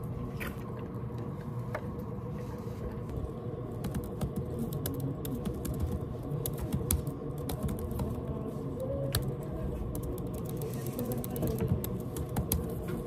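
Typing on a laptop keyboard: a steady run of quick, irregular key clicks over a low, steady room hum.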